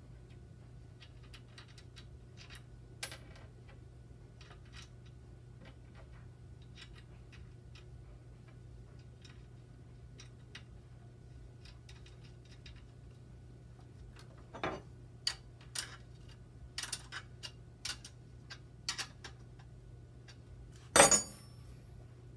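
Small metal clicks and ticks from hands and a hex key working on a bicycle's rear derailleur and chain: sparse and faint at first, then a quick run of sharper clicks in the second half and one louder clatter near the end.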